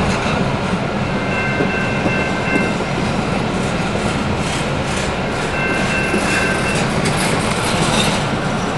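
Double-stack intermodal well cars rolling past at speed: a steady rumble of wheels on rail with clicking over the joints, and high wheel squeals that come and go several times.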